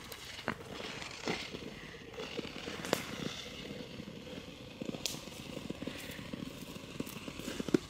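Ice skate blades scraping and gliding over natural lake ice, with many scattered faint clicks and ticks and a stronger hiss in the first couple of seconds.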